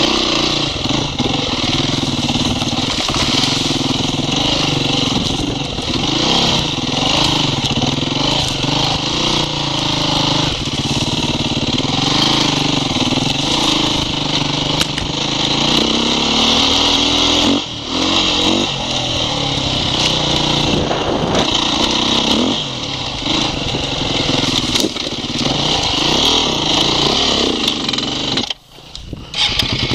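Off-road motorcycle engine running while riding, its pitch rising and falling as the throttle opens and closes. The sound drops off sharply for about a second near the end, then comes back.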